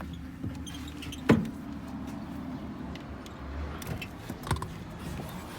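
A car's engine idling steadily, with a few knocks and clunks over it, the loudest a single sharp thump about a second in.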